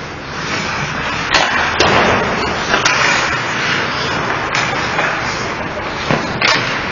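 Ice hockey play: skate blades scraping and carving the ice, with several sharp clacks of sticks and puck, the last one near the end.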